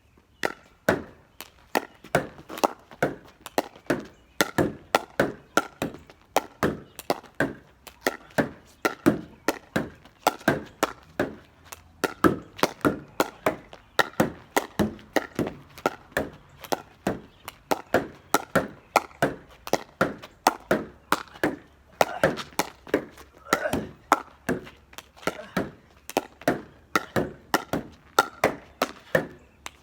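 Pickleball rally against a garage door: quick, sharp knocks of the plastic ball off the paddle and off the door, with the ball bouncing on the ground between, about two to three knocks a second without a break.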